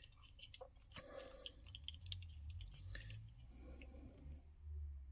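Faint, scattered clicks and taps of small die-cast toy Humvees being handled and turned over in the fingers, over a low steady hum.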